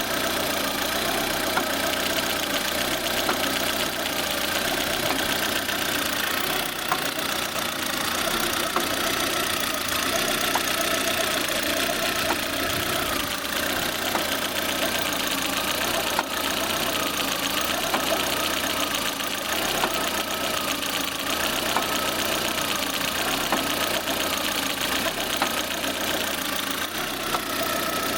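Lada Granta car engine idling steadily, with a sharp knock now and then. This is the knock the owner hears when releasing the clutch pedal, and he suspects the clutch, the release bearing or the gearbox.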